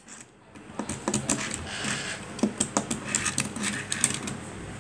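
Small die-cast Tomica toy car (a Nissan GT-R) being handled and set down on a hard desk: an irregular run of light clicks and taps, starting about a second in.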